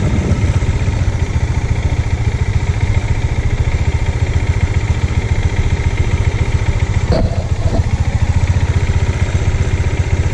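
Bajaj Dominar's single-cylinder engine running steadily at low speed as the motorcycle rolls slowly along, with a brief knock about seven seconds in.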